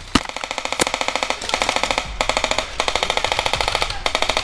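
Airsoft guns firing long full-auto bursts, a fast even rattle of shots broken by short pauses, with a few louder single cracks.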